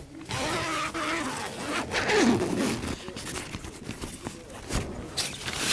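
Tent door zipper being pulled open along its curved track in several uneven rasping strokes, with the loudest rasps near the end.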